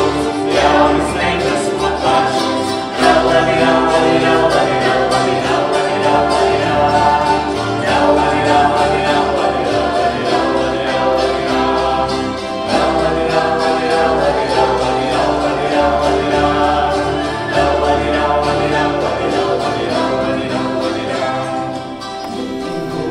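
Men's and women's voices singing a Latvian folk song together to plucked kokles, with the large bass dižkokle among them.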